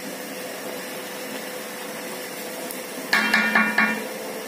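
Luchi sizzling steadily as it deep-fries in oil in an iron kadai. About three seconds in comes a quick run of ringing metal clanks, the wire skimmer knocking against the pan.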